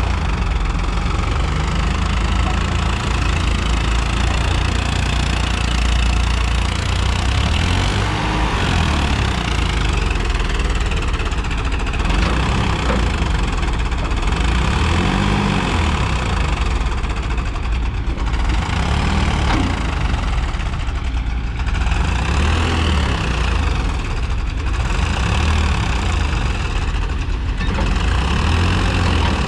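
Farmtrac 45 tractor's diesel engine labouring under heavy load, its revs rising and falling again and again as it tries to haul a loaded water-tank trailer through loose sand and fresh soil where the tyres cannot get a grip.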